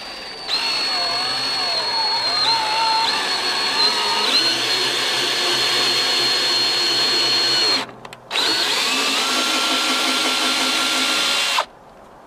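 Cordless drill running a socket on the sawmill bandwheel's centre bolt, driving it in to draw the wheel onto its spindle. The motor whine wavers and dips as the load changes, stops briefly about eight seconds in, restarts, and cuts off near the end.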